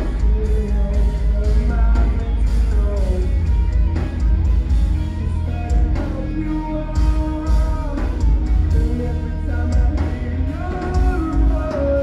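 Post-hardcore band playing live through a club PA: heavy bass, drums and electric guitars under a sung lead vocal line.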